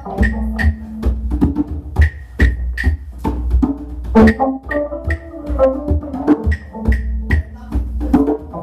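A rock band playing together: a drum kit keeps a steady beat with cymbal hits, under sustained electric guitar notes.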